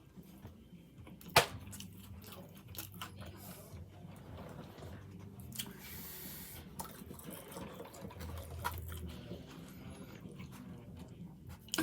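A person chewing a mouthful of chicken sandwich, with soft crunches and small mouth clicks over a faint low hum. A single sharp click comes about a second and a half in.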